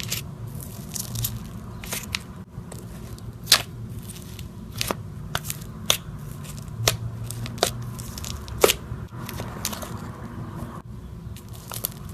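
Slime being squeezed and stretched by hand, giving irregular sharp pops and crackles, a dozen or so, over a low steady hum.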